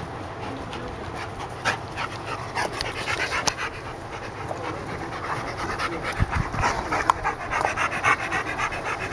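Dogs panting fast and hard while play-fighting, a quick steady rhythm of breaths, with a few sharp clicks scattered through.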